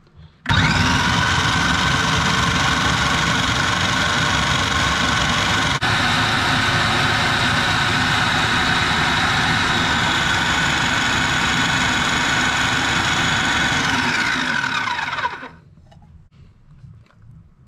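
Electric food processor motor running steadily under load, blending chopped tomatoes, onion, chili and ginger into a paste. It starts suddenly about half a second in, then winds down with a falling whine after about fourteen seconds when switched off.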